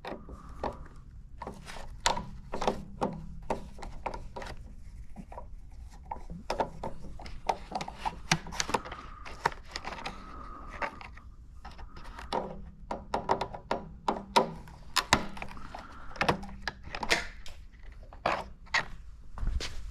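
Irregular clicks, taps and knocks of hands and tools handling the thermostat wiring and parts behind an electric water heater's access panel.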